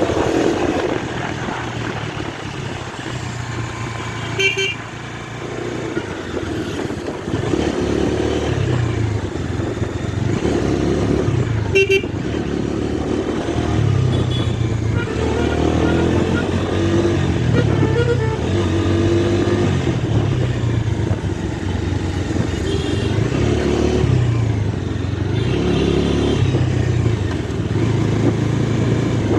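Bajaj Dominar 250 motorcycle engine running under way, its pitch rising and falling over and over as the throttle is opened and closed. A horn toots briefly twice, about four seconds in and again around twelve seconds.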